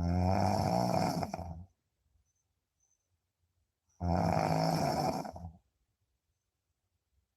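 Snoring: two long, low snores about four seconds apart, each lasting about a second and a half.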